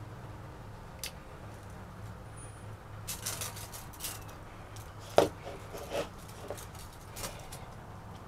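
Scattered light clicks and knocks from handling plywood and measuring it, with one sharper knock about five seconds in, over a faint steady low hum.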